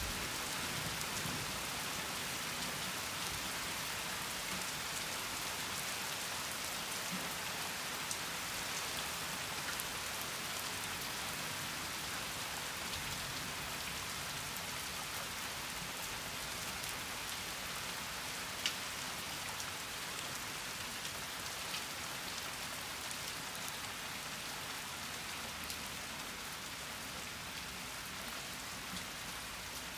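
Heavy summer rain falling steadily, a dense hiss with a few sharp ticks of drops landing close by. It eases slightly toward the end.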